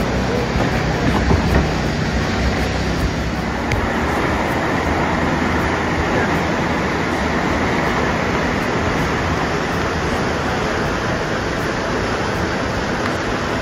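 A flooded jungle river rushing loudly over a rapid, a steady rough roar. For the first few seconds a longboat's outboard engine runs underneath it; the engine drops out about four seconds in, leaving only the rushing water.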